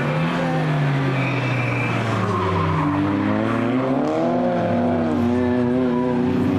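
Race car engines running hard through a corner. The engine note falls through the first second or two, then climbs and drops again about three to five seconds in, with tyres squealing.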